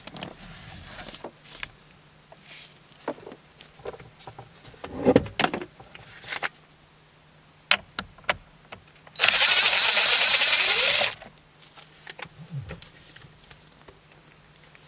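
A cordless power driver runs for about two seconds, spinning out a 7 mm bolt from under a steering column, with a steady high whine over a fast rattling whirr. Around it come scattered clicks and knocks of the tool and socket against the metal and plastic.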